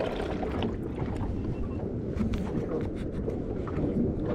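Wind buffeting the microphone and water washing against the hull of a small boat, with light scattered clicks as fishing line and a jig are handled.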